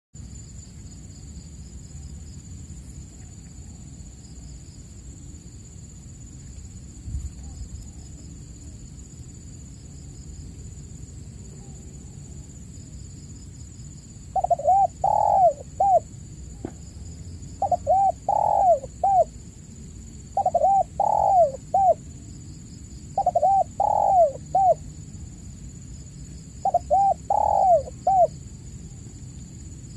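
Spotted dove (tekukur) cooing: after about fourteen seconds of low background noise, five cooing phrases of several notes each, repeated roughly every three seconds.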